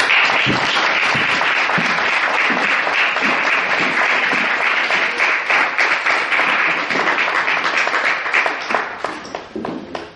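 Audience applauding: many hands clapping together. It starts suddenly, stays steady, then thins out and dies away in the last second or so.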